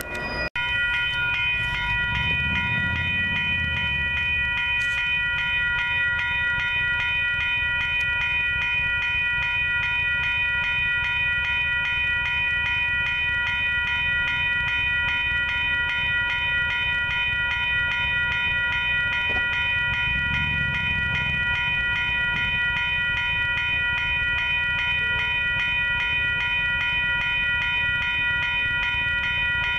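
Railroad grade-crossing warning bell ringing steadily with a fast, even repeat of a bright, multi-toned ring. A steady low rumble runs under it and swells twice.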